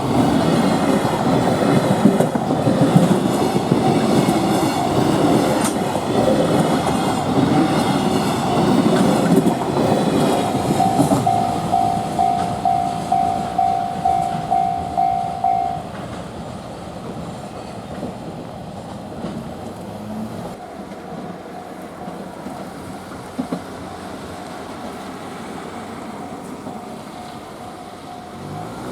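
Freight wagons rolling over a Japanese level crossing, wheels clattering over the rail joints, while the crossing's warning bell rings at about two strikes a second. About halfway through the train has gone by and the rumble drops away, leaving the bell ringing more faintly.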